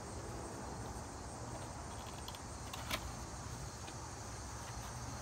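A cardboard gift box being handled and its top flap opened, with one sharp click about three seconds in. Behind it runs a steady outdoor background of insects and a low rumble.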